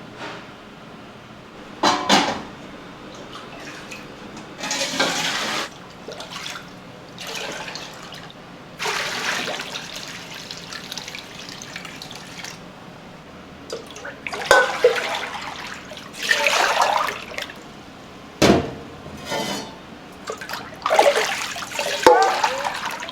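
Water splashing and pouring in short, irregular bursts, as in udon kitchen work at the sink or noodle pots, with a sharp knock about three-quarters of the way through.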